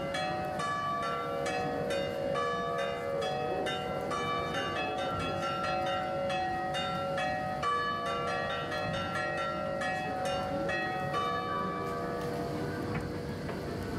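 Church bells of a monastery bell tower ringing in a fast, continuous peal, several strikes a second at different pitches, each one left ringing.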